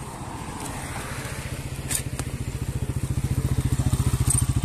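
Motorcycle engine running with a fast, even pulse. It grows louder from about halfway through.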